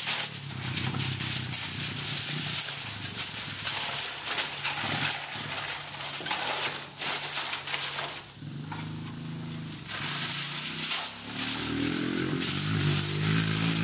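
Aluminium foil crinkling and crackling as sheets are handled and wrapped around food, a dense run of sharp crackles that eases off briefly in the middle. A low steady hum comes in near the end.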